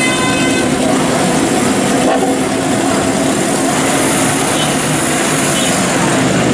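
Many motorcycle engines running at once, a steady engine noise mixed with crowd chatter.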